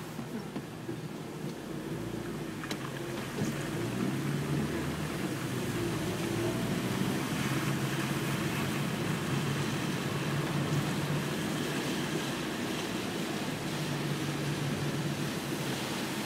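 Inside a car driving in heavy rain: a steady hiss of rain on the windshield and of tyres on the wet road, over a low engine hum. The sound grows louder over the first few seconds as the car moves off from a stop, then holds steady.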